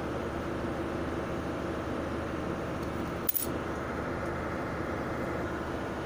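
A steady machine hum, with one short, sharp metallic clink about three seconds in.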